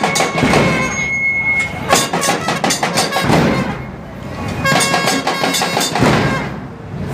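Metal percussion of a zanjeel procession: bursts of clashing, jingling metal with a ringing tone, coming together about every three seconds in a steady marching rhythm.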